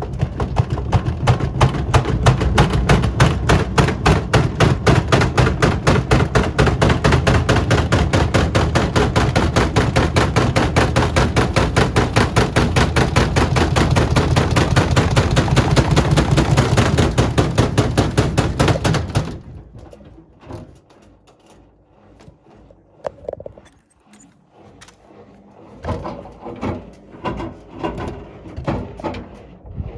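Whirlpool washing machine spinning with a 6-litre water bottle as an unbalanced load, the bottle banging rapidly and regularly in the drum over a heavy rumble. About nineteen seconds in, the banging drops off suddenly, leaving quieter scattered knocks.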